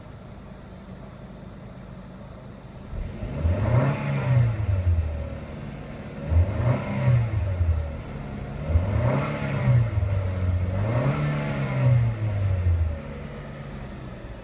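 The 2014 Chevrolet Sonic LTZ's turbocharged four-cylinder engine idles, then is revved four times, its pitch rising and falling back to idle each time.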